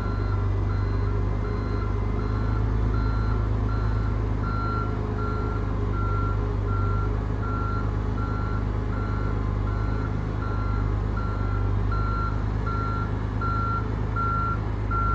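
A vehicle's reversing alarm beeping steadily, about two to three beeps a second, over the low, steady rumble of an engine running.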